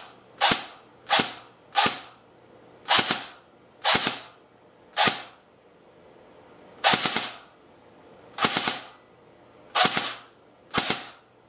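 Airsoft rifle firing pellets, about fifteen sharp cracks, mostly in quick pairs of double shots with pauses of up to two seconds between them.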